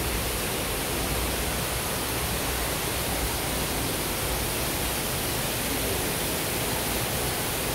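Steady, even rushing noise that does not change, the constant background hiss of the indoor exhibit hall.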